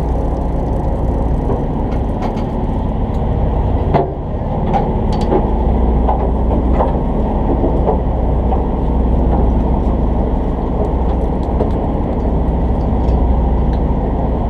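Steady low drone of the fishing boat's engine running, with a sharp knock about four seconds in and a few lighter clicks over the next few seconds.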